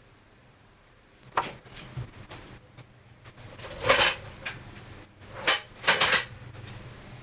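Metal clinks and clanks of hand tools and metal car parts being handled and set down. A sharp knock comes about a second and a half in, louder clanks around four seconds, and two more shortly after.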